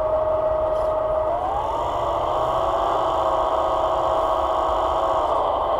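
Hydraulic pump of an RC tractor's timber crane whining steadily. Its pitch glides up about a second and a half in, holds higher while the grapple is worked, and drops back near the end.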